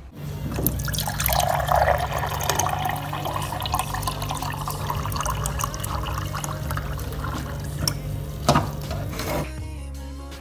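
Water running from a water dispenser's tap into a glass, filling it. A click comes shortly before the flow stops abruptly near the end.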